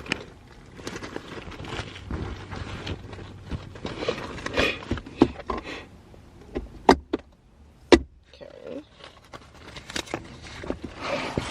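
A string of clicks, rattles and knocks from things being handled, with two sharp knocks about seven and eight seconds in, over a faint low steady hum.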